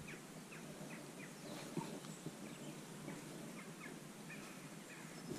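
Faint bird chirps: short, falling notes repeated irregularly over a quiet outdoor background hiss.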